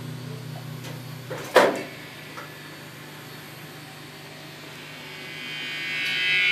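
Distorted electric guitar: a held low chord dies away, a single loud sharp knock comes about a second and a half in, and near the end sustained high notes swell in as a handheld yellow object is pressed to the strings like a slide.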